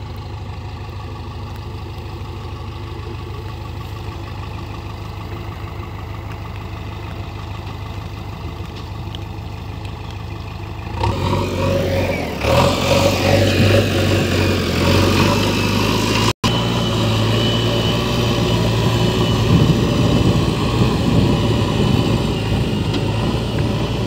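JCB 3DX backhoe loader's diesel engine running steadily, then about eleven seconds in it gets louder and revs up as the front loader bucket pushes and scrapes through loose red soil. It keeps working under load, with a momentary break a few seconds later.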